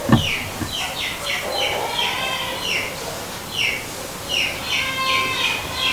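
Small birds chirping, a steady run of short falling chirps a few times a second, with a brief knock right at the start.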